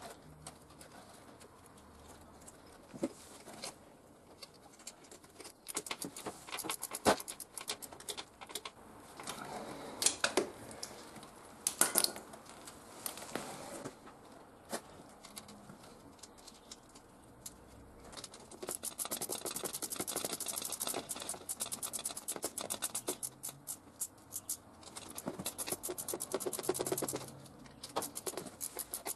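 Scattered knocks and clicks of a motorcycle radiator being set back in place, then a ratchet wrench ticking rapidly in several spells from about two-thirds of the way in as a radiator mounting bolt is run in.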